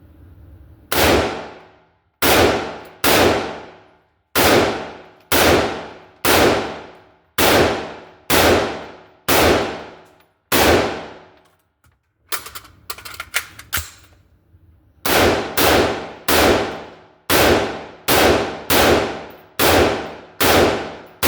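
A .223 rifle firing PMC Bronze .223 Remington rounds in steady single shots, about one a second, each trailing off over roughly a second. After about ten shots there is a burst of small clicks and clatter, a magazine change, and then firing resumes at a slightly quicker pace.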